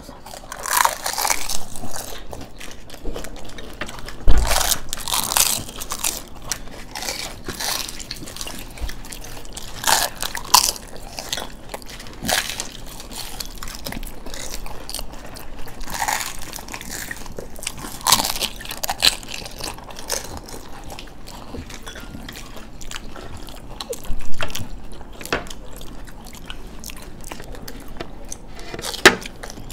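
Three people eating fuchka (pani puri) fast: crisp puri shells crunch loudly every second or few seconds, with chewing in between. A dull knock comes about four seconds in.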